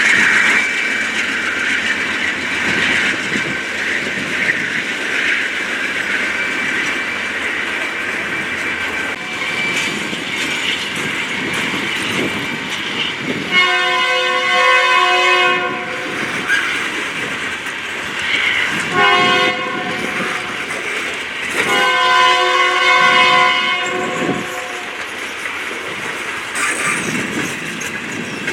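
Train passing with steady rolling rail noise. About halfway through, its locomotive horn sounds three times: a long blast, a short one, then another long one.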